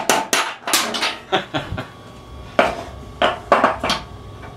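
Hammer blows on a socket used as a drift, driving the top bearing out of a riding mower deck's spindle housing; sharp metallic strikes come in a quick run, then a few lighter taps, a brief pause about two seconds in, and another short run of strikes.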